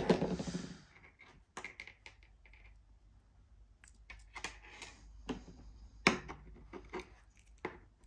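Hands handling small fishing tackle: a hook, a swivel and stiff chod line, with a knot-puller tool picked up while pulling a half blood knot tight. A brushing sound at the start, then scattered light clicks and taps.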